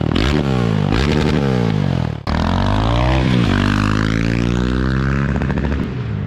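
KTM 690 SMC R's single-cylinder engine, loud through an Arrow exhaust with the dB killer removed, being revved hard. Its pitch climbs and drops again and again, with a brief break about two seconds in.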